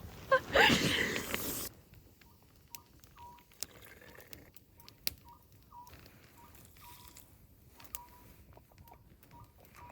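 Hot water splashing into a rubber hot-water bottle for about a second and a half. Afterwards come faint scattered clicks and a faint string of short, high chirps repeating about twice a second.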